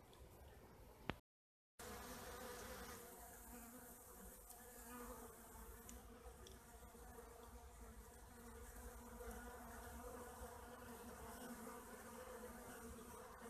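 Honeybees buzzing at a hive entrance, a steady low hum of many wingbeats as they fly in and out. A short click and a brief dropout come about a second in.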